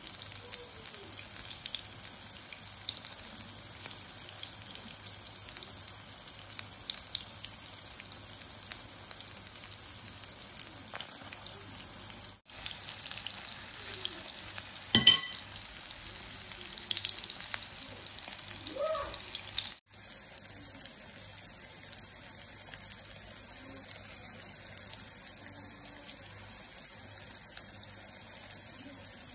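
Chicken-and-shredded-potato patties sizzling in oil in a frying pan, a steady crackling hiss. A sharp knock about halfway through as a metal ring mould is handled.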